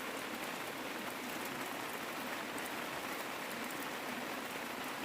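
Rain falling steadily, an even hiss with faint scattered drop ticks.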